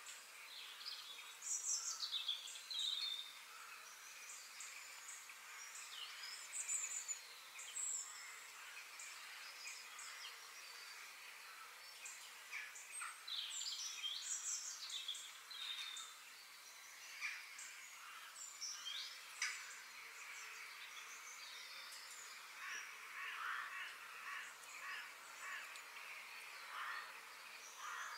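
Birds chirping and calling in many short notes that glide up and down, over a steady outdoor hiss: a nature ambience with no voices.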